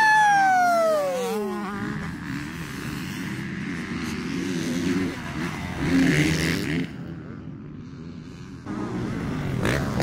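Motocross bike passing close at high revs, its engine note dropping steeply as it goes by. Other bikes run at a distance after it, and near the end another bike comes closer and louder.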